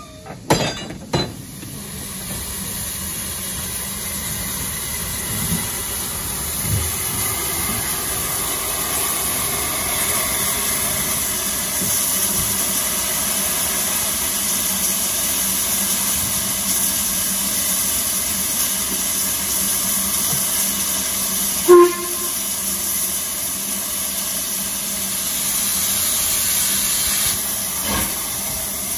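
LMS Jubilee class steam locomotive No. 45596 'Bahamas' hissing steadily, with steam escaping from its cylinder drain cocks. A single short, loud whistle-like toot sounds about two-thirds of the way through.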